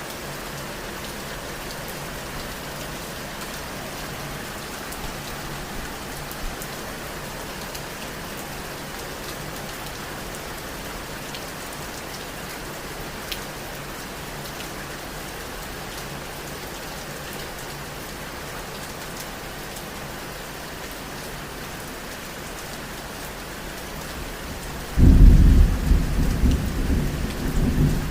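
Steady rain falling, with scattered drop ticks. Near the end, a loud, low rumble of thunder starts suddenly and rolls on unevenly.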